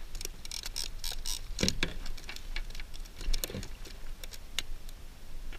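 Quick clicking and tapping with two dull knocks as a freshly caught small trout is handled and unhooked over the plastic hull of a fishing kayak. The clicks are thickest in the first second and a half, and the knocks come about a second and a half and three and a half seconds in.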